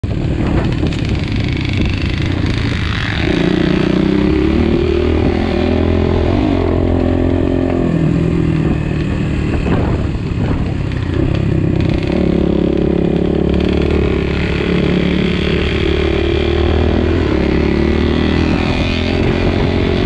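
Enduro motorcycle engine running while riding a dirt forest trail. The note rises and falls with the throttle, with a few short knocks from the bike over bumps, one near the start and a couple around the middle.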